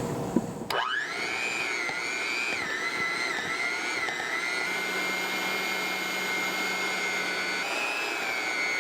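Electric mixer starting up with a rising whine, then running steadily at low speed while beating a thick whipped-cream and pudding mixture. Its pitch dips and wavers a little with the load.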